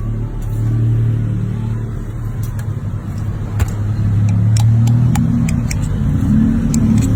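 A motor vehicle's engine running close by, a loud, steady low hum that grows stronger in its upper band about six seconds in, with scattered light clicks over it.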